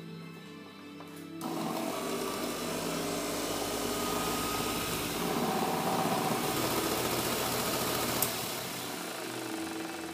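Chicago orbital car polisher running close to the microphone, a loud steady whir that starts about a second and a half in. Near the end there is a sharp click, after which it is quieter. Background music plays throughout.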